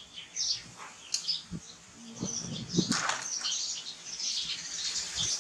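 Small birds chirping in short, high, scattered bursts, with a few soft knocks around the middle.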